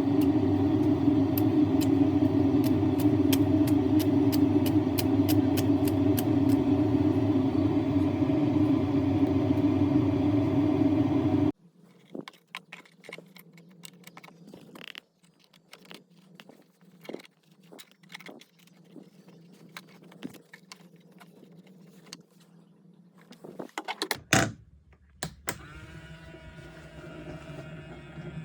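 Small battery-powered Daiso robot vacuum running with a steady motor hum and rapid ticking; it cuts off suddenly about eleven seconds in. Light scattered clicks and knocks follow, then a sharp clatter and a steady hum again near the end.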